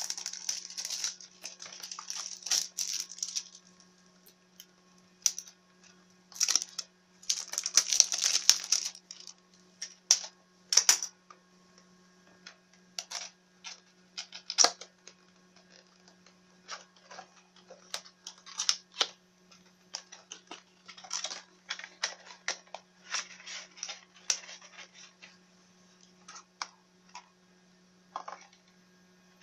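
Plastic shrink-wrap crinkling and tearing as a cardboard SSD retail box is unwrapped and opened, then a clear plastic tray being handled: irregular crackles and sharp clicks, over a steady low mains hum.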